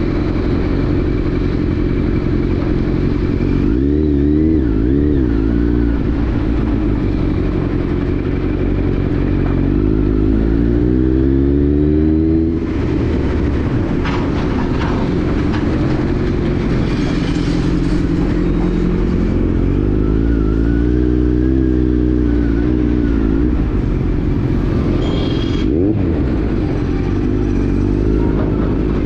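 Kawasaki Z900's inline-four engine running on the move, its pitch rising and falling several times as the throttle is opened and closed. The longest rise ends in a sudden drop about twelve seconds in.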